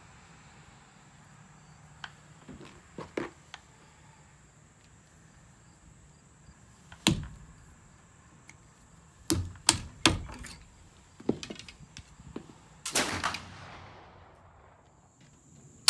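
Gunshots cracking across an outdoor range: one shot about seven seconds in, a quick run of three or four cracks around ten seconds, and another with a long echoing tail near thirteen seconds. Faint clicks and taps of the rifle being loaded come first, and a loud shot from the .50 caliber flintlock begins right at the end.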